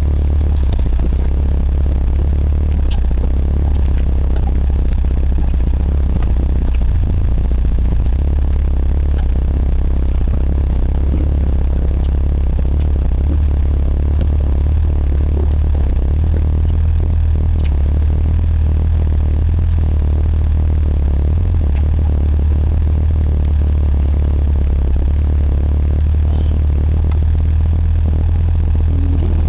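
A vehicle engine runs steadily at low revs, heard from inside the cab, with frequent knocks and rattles from the body as it bumps along over rough ground.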